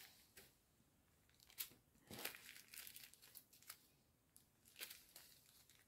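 Faint, scattered crinkling of small plastic zip-lock bags of diamond-painting drills being handled.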